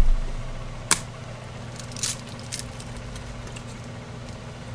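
Frozen tater tots going into a frying pan, with light crackling and a few clicks, one of them sharp about a second in, over a steady low hum.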